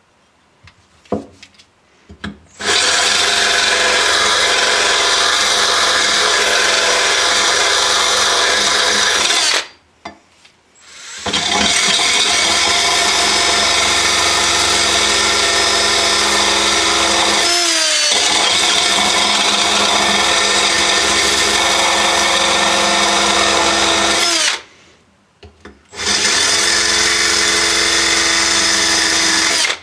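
Electric drill driving a sharpening attachment against the cutting edge of a steel lawn mower blade, grinding in three long runs with short pauses between them. Its speed dips briefly once about midway through.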